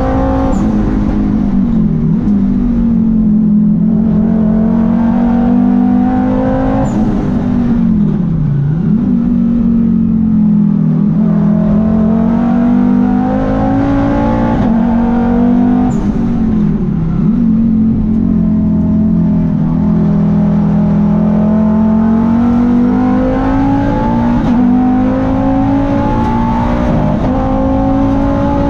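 Turbocharged Volvo T5 five-cylinder racing engine under hard throttle, heard from inside the cabin. Several times its pitch drops sharply as the car brakes and shifts down for a corner, then climbs again as it accelerates out.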